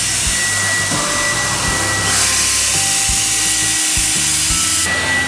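Air blower at a plush-toy grooming station, blowing with a steady loud hiss that strengthens about two seconds in and eases near the end, over background music.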